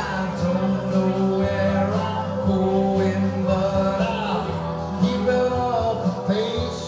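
Live rock music from two amplified electric guitars, with a man singing into a microphone.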